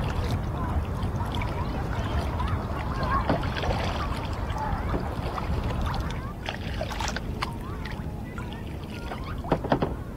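Water lapping and splashing against a kayak hull as it moves across choppy water, over a steady low wind rumble on the microphone. A few sharp clicks come in the second half, several of them close together near the end.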